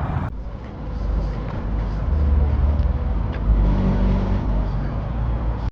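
A car engine running with a low rumble, growing louder in the middle of the stretch.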